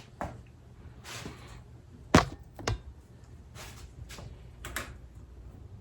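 Clunks and knocks of a motorcycle fork tube being handled and clamped in a bench vise, with one sharp metal knock about two seconds in followed closely by a second, and lighter taps and rustles around them.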